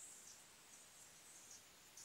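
Near silence: faint steady hiss with a few soft, high-pitched rustles.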